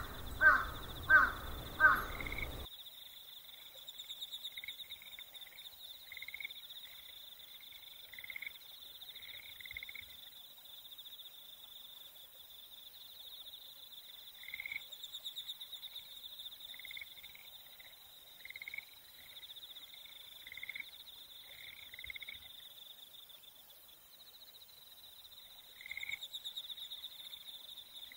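Outdoor ambience: a steady, pulsing high insect drone with bird calls coming in scattered short groups. Four loud calls over a low rumble open it and cut off abruptly about two and a half seconds in.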